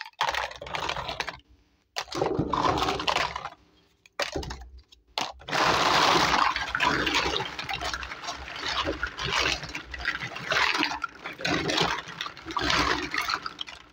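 Small plastic toy kitchenware clattering and clicking together as hands rummage through a heap of it, in spells at first, then near-continuous from about five seconds in.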